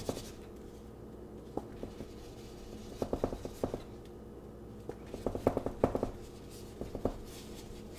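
Paintbrush tapping in short bursts of quick taps, putting white snow onto an acrylic painting.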